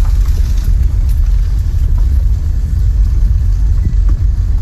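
Car driving slowly, a steady low rumble of engine and road noise heard from inside the car.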